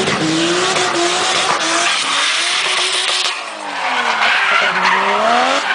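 Drift car engine revving hard with its pitch rising and falling, over a steady tyre squeal as the car slides sideways; the revs drop briefly about three and a half seconds in, then climb again.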